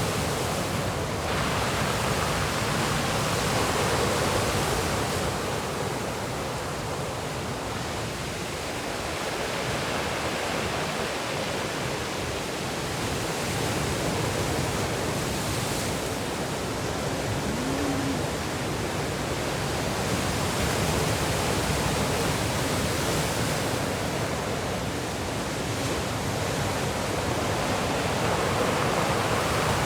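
Rough sea waves breaking and washing ashore: a continuous rushing surf that swells and eases every few seconds.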